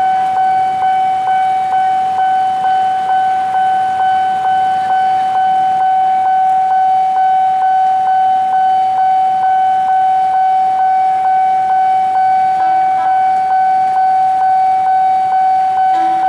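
Railway level-crossing warning alarm sounding for an approaching train: a loud, steady electronic tone with a pulse about twice a second.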